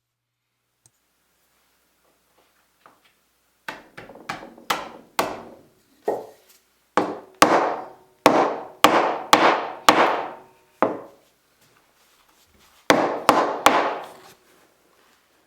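Hammer blows on wood, driving a glued wooden patch down into the recess cut out around a knot in a bench top. About sixteen sharp strikes in uneven runs start about four seconds in, each with a short ringing tail.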